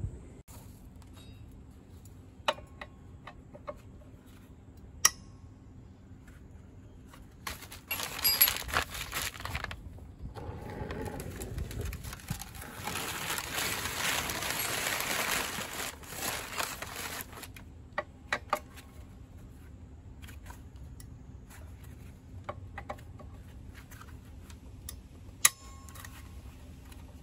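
Hands-on workshop noises: scattered single clinks of metal tools, and several seconds of rustling and scraping as a plastic oil drain pan is slid over paper sheeting.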